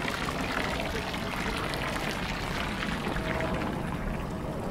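Water pouring and splashing steadily, with a patter of small drips; the hiss thins out near the end.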